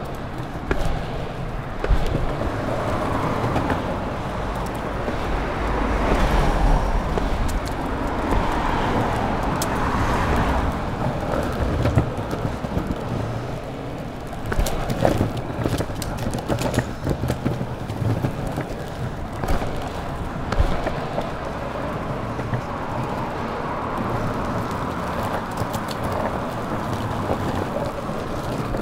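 Longboard wheels rolling over city pavement: a continuous rumble broken by sharp clicks and knocks, thickest in the middle, with road traffic behind it.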